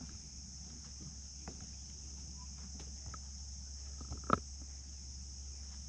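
Steady, high-pitched chorus of insects buzzing without a break, with a few faint clicks and one sharper click about four seconds in.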